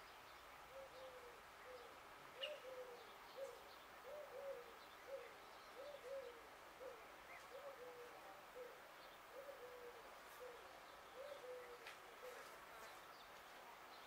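A dove cooing faintly in short repeated phrases of two or three low notes, about one phrase every two seconds, stopping a little before the end. Small birds chirp faintly at a higher pitch.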